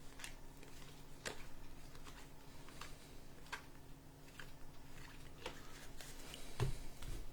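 Baseball trading cards being handled and flipped through one by one, a scatter of faint soft clicks and slides over a low steady hum, with a soft thump near the end.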